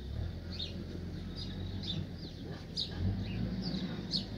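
Small birds chirping in short, falling calls, repeating every half second or so, over a low steady rumble that swells slightly about three seconds in.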